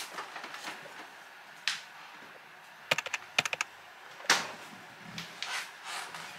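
Refrigerator door and a small glass bottle being handled: a quick run of sharp clicks and clinks about three seconds in, then one louder knock a second later, with soft rustling in between.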